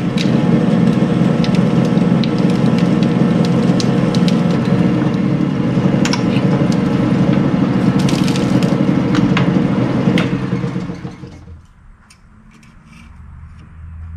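Metal lathe running with its chuck spinning a piece of metal round stock, a steady motor and gear hum with sharp crackles of metal chips as it cuts. The lathe is switched off and winds down about 11 seconds in.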